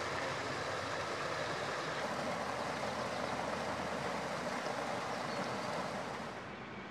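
Flowing water rushing steadily, easing off a little near the end.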